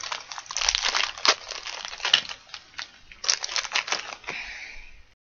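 Toy packaging being handled and pulled open: rustling with many quick little cracks in two spells, fading out after about four seconds.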